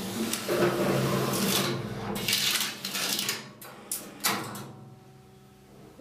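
Huijin ZK-400BL banknote strapping machine running a short-band strapping cycle: a steady motor hum with bursts of mechanical whirring and clatter as it feeds and tightens the PP strap around the note bundle. Two sharp clicks come about four seconds in, and the machine then goes quiet.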